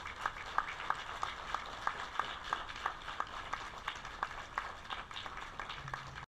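Audience applauding, with one set of louder claps standing out at about three a second. It cuts off abruptly near the end.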